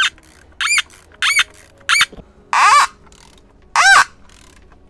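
Hand socket ratchet tightening a 10mm masonry bolt into a timber post, its pawl clicking in a quick run on each return swing of the handle, about six strokes. The click rate rises and falls with each swing. The bolt is biting in soft breeze block where an 8mm fixing had kept spinning.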